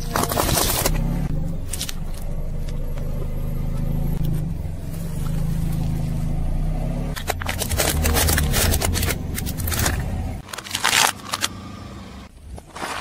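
A car's engine running at low speed as its tyre rolls slowly over objects on asphalt, with crackling crunches as they are crushed, a long run of them about seven to nine seconds in. Near the end the engine sound drops out and a few sharp cracks follow.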